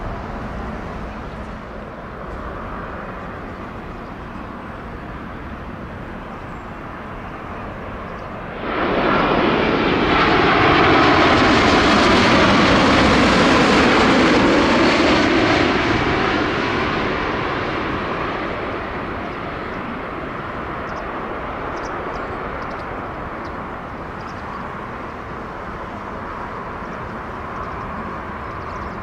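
Boeing 787 jet airliner passing low overhead on final approach. Its engine noise comes in abruptly about a third of the way in, with tones that sweep as it passes, stays loud for several seconds, then fades away. Before and after it, a steady background of distant traffic and aircraft noise.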